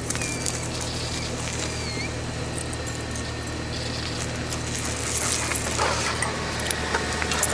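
A dog giving two short, thin, high whines in the first two seconds. Then comes scuffling and rustling on dry ground, over a steady low hum.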